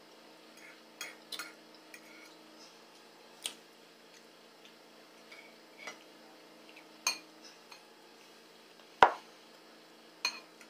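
Metal forks clinking and scraping against dishes as people eat: a handful of separate clinks, the loudest about nine seconds in.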